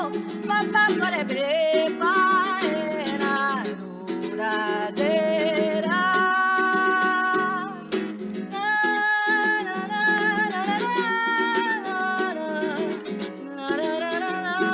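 Song with a strummed guitar-like accompaniment and a voice singing a melody, holding long notes.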